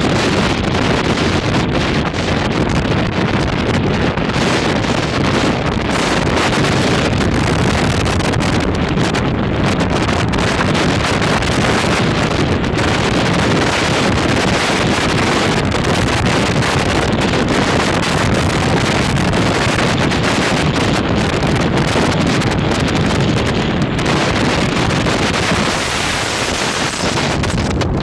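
Loud, steady wind buffeting the microphone in a gale of sustained winds above 100 km/h.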